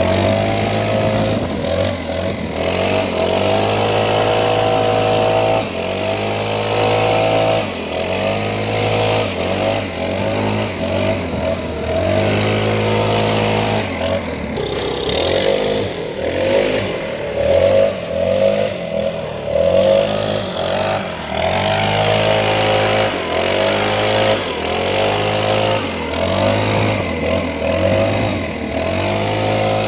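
Gas-powered leaf blower engine running with a rushing of air, its throttle opened and eased again and again, so the engine pitch rises and falls every few seconds.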